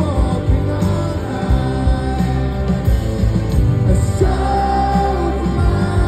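Live rock band playing a song with electric guitar and sung vocals, loud and steady.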